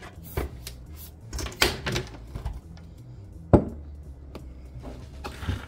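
Hard plastic clicks and knocks as a Ninja Nutri Blender Pro cup is twisted off its motor base and its blade assembly handled: a few separate sharp clicks, with the loudest knock about three and a half seconds in.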